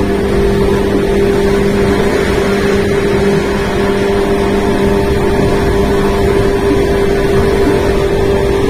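JR West 115 series 3000-subseries electric train running at steady speed, heard through a fully open window: a loud, even rush of running noise over a steady motor and gear hum. A lower note in the hum fades out about three and a half seconds in.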